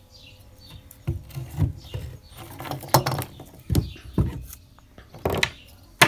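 Wood-on-wood knocks as a carved wooden wedge is driven into the split in a small log, about six irregular dull knocks.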